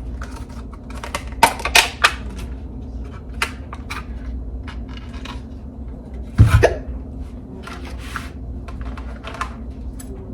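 Knife, plates and other kitchen utensils clicking and clattering in a string of short, scattered knocks. A single hiccup about six and a half seconds in is the loudest sound, over a low steady hum.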